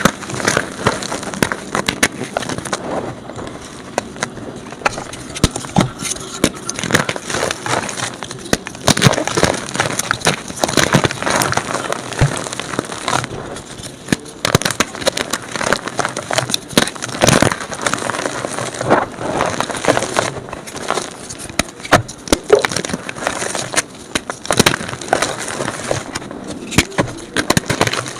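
Blocks of gym chalk being crumbled and crushed, sped up: a dense, continuous run of crunching and crackling with many sharp snaps.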